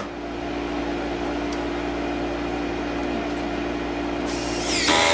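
A steady hum runs underneath. Near the end, a power drill starts up with its pitch rising, driving a screw into the door framing.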